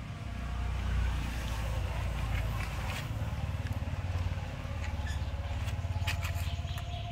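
A motor engine running with a low, pulsing rumble that swells and eases twice. A few sharp clicks sound near the end.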